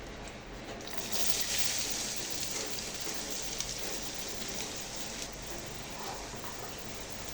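A strong, even hiss from the cooking pot starts suddenly about a second in and eases off about four seconds later.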